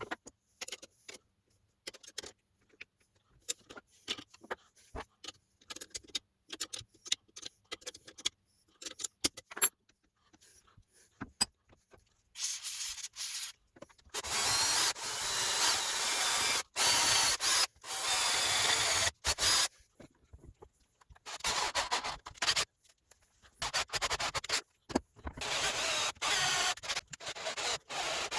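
Scattered small clicks and taps of parts being handled, then, from about halfway, long stretches of abrasive rubbing on a workpiece, broken by short pauses.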